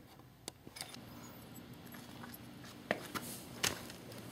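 Faint handling sounds: a few light clicks and taps from small parts and hands being moved about, over a low steady hum that comes in about a second in.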